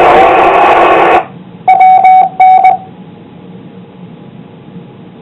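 FM two-metre radio receiving a weak, static-filled transmission, mostly loud hiss, which cuts off sharply about a second in as the carrier drops. The repeater then sends its courtesy tone, two short beeps, and a faint hiss remains.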